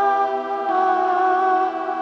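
Music of sustained, layered tones held as chords, the chord shifting about two-thirds of a second in.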